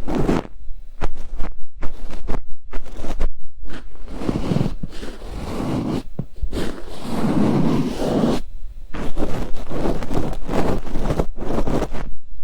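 Ear-cleaning tools scraping and rubbing against an ear microphone in close-up. Quick runs of short scratching strokes come in the first few seconds and again near the end, with slower, fuller rubbing in between.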